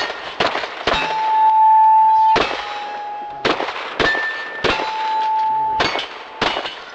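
A string of pistol shots at irregular spacing, roughly one every half-second to second, during a USPSA stage. After several hits, struck steel targets ring on with clear tones.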